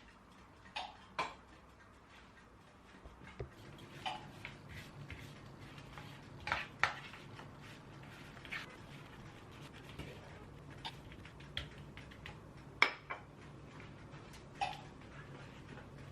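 Kitchenware being handled: scattered clinks and knocks at irregular intervals, with a low steady hum that comes on a few seconds in.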